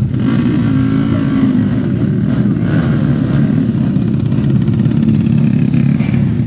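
Tuned 130 cc four-stroke underbone motorcycle engines running loud and steady, revving.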